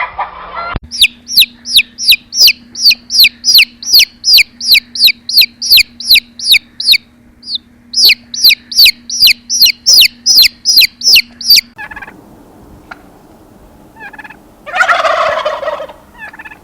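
A bird gives a long series of short, high, falling whistled calls, about two to three a second, with a brief pause midway. A louder, lower call comes near the end.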